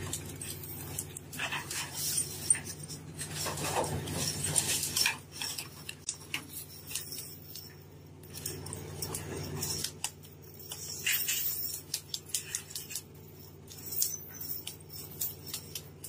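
Steady low hum of the fishing vessel's machinery under irregular knocks and metallic clinks: tuna thrashing on the wooden deck and the brailer's chains and gear clanking.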